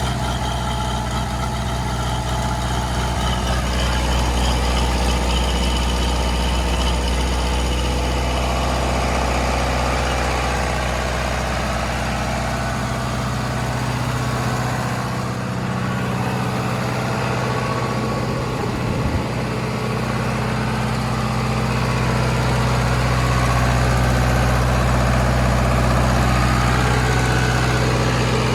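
John Deere diesel engine of a 40 kW trailer-mounted generator running steadily at a constant speed shortly after being started.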